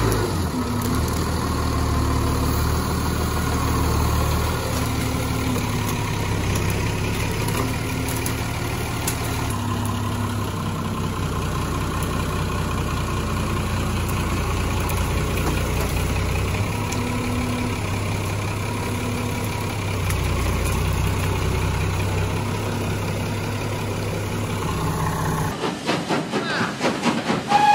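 Massey Ferguson 399 tractor's six-cylinder Perkins diesel running steadily under load, its note shifting a little as the front loader works. Near the end the sound cuts abruptly to a steam train puffing.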